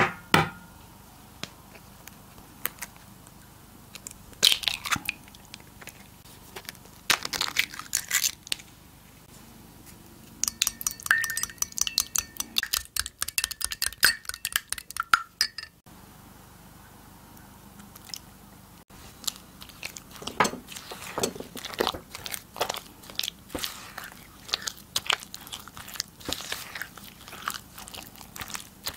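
A glass measuring cup knocks down on the table, and a couple of sharp cracks follow a few seconds apart as eggs are broken into it. A wire whisk then beats the eggs, clinking fast against the glass for about five seconds. After a pause, a spatula works the beaten egg into creamed butter and sugar in a glass bowl, making irregular wet, sticky mixing noises until the end.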